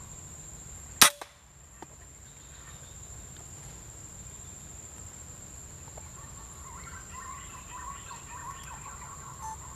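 A single air rifle shot about a second in: one sharp crack that dies away quickly. The shot hits the green pigeon it was aimed at.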